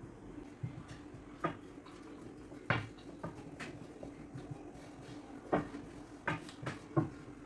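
Scattered light knocks and taps of kitchen work, about seven in all at uneven intervals, over a steady low hum.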